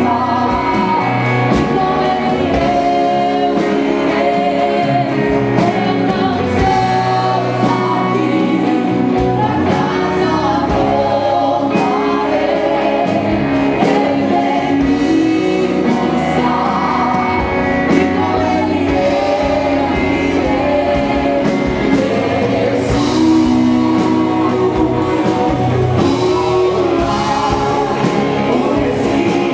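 Worship music: singing over a band with guitar and a steady drum beat.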